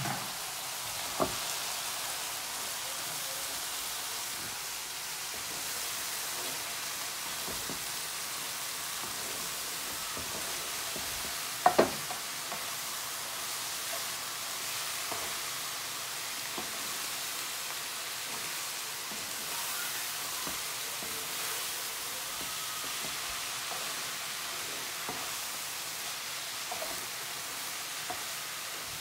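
Shredded cabbage sizzling steadily as it fries in a non-stick pan, stirred with a wooden spatula. A few sharp knocks of the spatula against the pan, the loudest a double knock about twelve seconds in.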